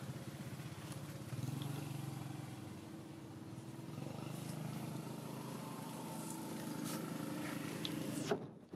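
A small engine running steadily at low revs, stopping abruptly with a click near the end.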